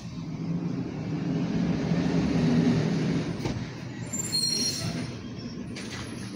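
A large vehicle's engine rumbling past, swelling to its loudest about two and a half seconds in and then fading, with a brief high brake squeal about four and a half seconds in.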